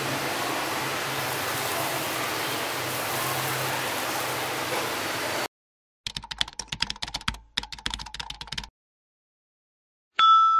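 Steady hiss with a low hum that cuts off abruptly about halfway through. Then come two runs of rapid keyboard-typing clicks from a sound effect, and a bell ding rings out right at the end.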